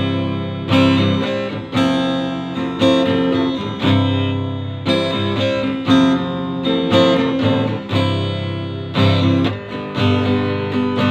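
Cutaway acoustic guitar strummed in chords, a fresh stroke about once a second with the chords ringing on between strokes.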